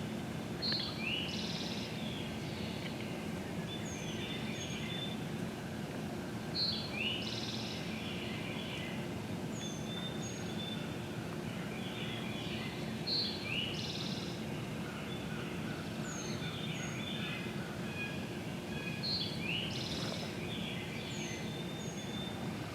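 A songbird repeating the same short, high phrase about every six seconds, over steady low background noise.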